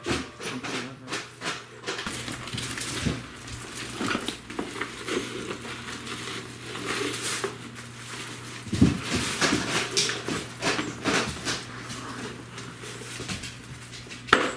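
Cats rummaging among paper gift bags and tissue paper and nosing into a bucket of catnip toys: irregular rustling, crinkling and light clattering.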